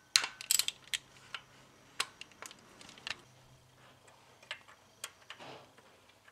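Irregular sharp metal clicks and ticks of hand tools, a ring spanner and then a small driver, working loose the bolts of a timing-chain tensioner in an open cylinder head. A quick cluster of clicks in the first second, then scattered single ticks.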